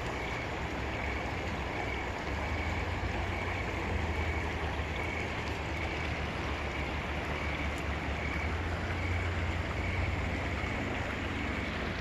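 Steady rush of flowing river water under a low rumble, with a faint high note repeating evenly, a little more than once a second.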